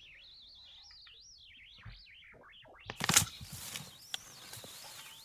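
Faint birdsong from a recorded listening track: wavering, twittering chirps. About three seconds in, a soft outdoor background with a few light knocks joins them.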